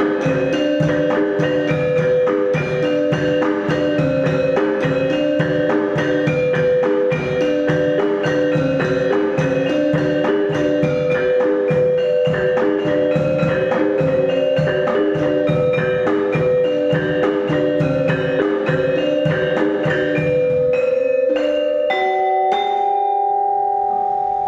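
Percussion ensemble music: xylophone-like mallet instruments play a fast repeating pattern over a held drone tone and a steady low drum beat. Near the end the pattern stops and gives way to a few long held notes with sharp clicks.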